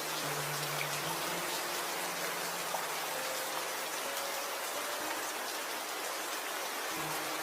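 Steady rain falling, with individual drops pattering on a surface.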